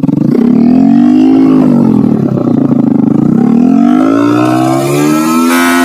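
Bajaj Pulsar NS160's single-cylinder engine revved loudly through an aftermarket SC Project slip-on exhaust: the pitch climbs and drops twice, then climbs again and holds near the end.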